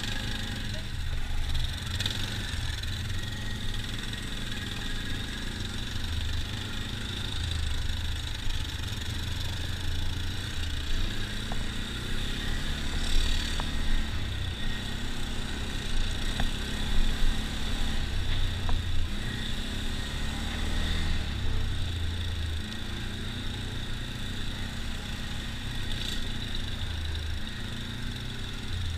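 ATV engine running steadily as the quad rides along a rough dirt trail, with a few sharp knocks and rattles around the middle.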